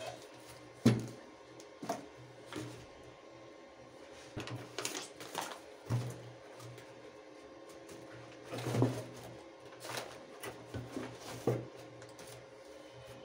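Cardboard box and plastic packaging being handled: scattered rustles and knocks as items are pulled out and set down on a table, the loudest knock about a second in.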